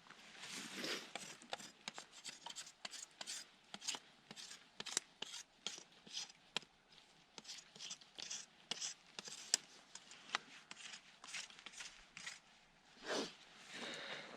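Bark being scraped and peeled off a wooden stick: a run of irregular scrapes, cracks and snaps.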